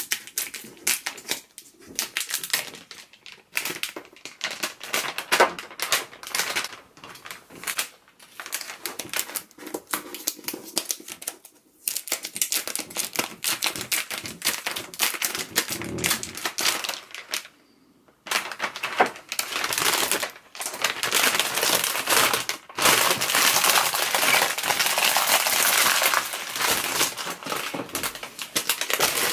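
Thin clear plastic protective film being peeled off an iMac screen and handled, crinkling and crackling in quick runs with a few short pauses, then steadier crinkling for the last third.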